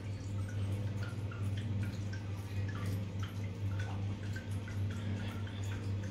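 Water dripping and plinking, several drips a second, over a steady low hum.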